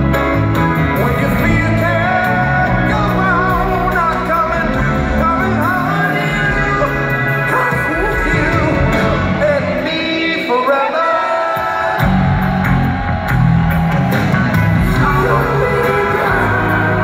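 Live soul-pop band recorded in an arena: a lead vocalist sings long, gliding runs over electric guitar, keyboards and drums. The bass and drums drop out briefly a little past the middle, then the full band comes back in.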